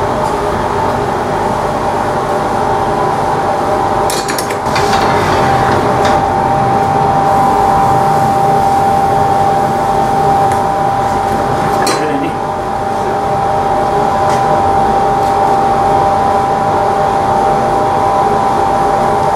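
Steady roar of a glassmaking furnace and glory-hole burner with a constant hum, and a few light clinks of a steel hand tool against a lead crystal goblet being shaped on the punty.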